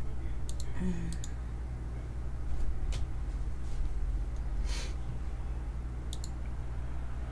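Trading cards handled at the table: a few scattered light clicks and a short rustle about two-thirds of the way through, over a steady low hum.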